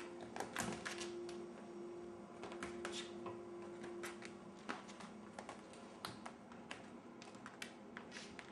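Kittens clawing and batting at a hanging paper banner and scrabbling on a wooden floor: irregular light clicks, taps and paper scratches. A faint steady hum runs under the first half and stops.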